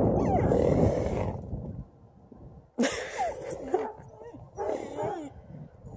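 A husky whining and yowling in gliding, wavering pitches, in two short bouts about three and five seconds in: excited calls from a dog that wants to play. A rush of rustling noise comes first, in the opening second and a half.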